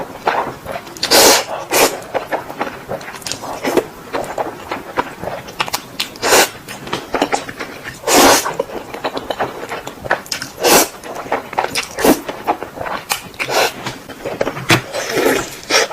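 Close-miked eating of Indomie instant noodles with chicken: a string of wet slurps, smacks and chewing noises at irregular intervals, a few of them longer and louder.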